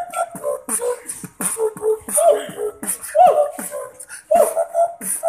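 A man beatboxing: mouth-made kick drum and hissing hi-hat strokes in a steady beat, with a hummed, gliding melody sung over them.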